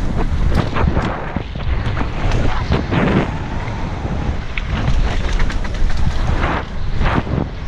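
Wind rushing over a helmet-mounted GoPro's microphone as a mountain bike rides fast down a dirt trail, with tyre noise on the dirt and many short knocks and rattles as the bike goes over bumps.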